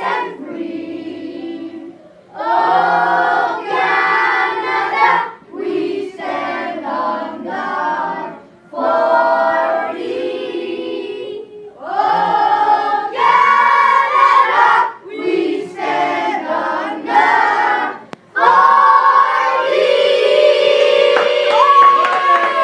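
A group of children singing together unaccompanied with a woman's voice among them, in phrases of a few seconds with short breaks between, ending on a long held note near the end.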